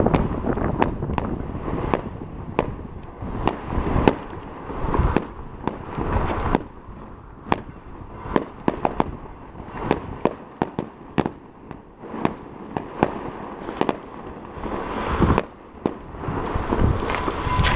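Fireworks going off: a continuous run of sharp cracks and bangs at irregular intervals over a low rumble of bursts, heaviest near the start and again about three-quarters of the way through.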